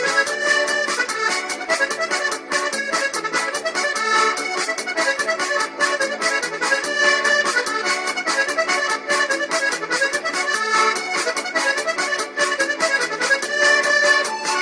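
Music with a fast, steady beat and a busy melodic line, playing throughout.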